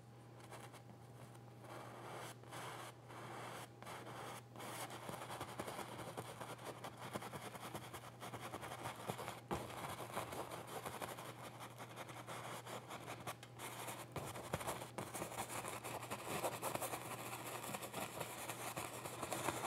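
Paintbrush bristles scrubbing and swirling oil paint into a canvas: a soft, uneven scratchy rubbing with a few light ticks, over a steady low hum.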